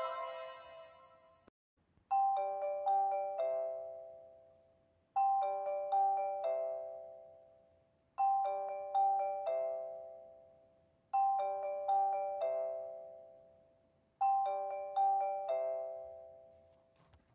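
JR East station chime: a four-note bell-like electronic chime, played five times about three seconds apart, each phrase ringing out before the next. At the start the tail of a busier chime melody fades away.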